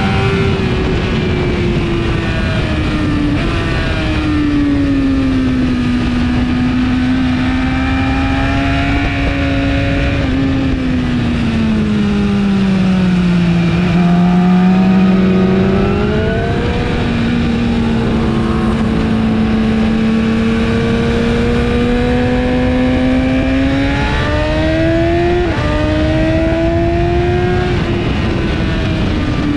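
2017 BMW S1000RR inline-four engine through an Akrapovic exhaust at high revs, its pitch sweeping up under acceleration and sagging as the bike slows for corners, with a rush of wind over it. Halfway through the note falls to its lowest, then climbs again, and near the end it drops suddenly on an upshift.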